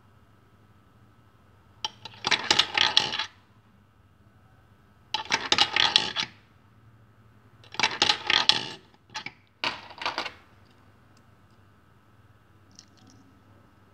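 Ten-dollar coins dropped one at a time into a JY-922 electronic coin acceptor, each running through the metal coin path and clattering out below. There are about five drops, each about a second long, the last few close together.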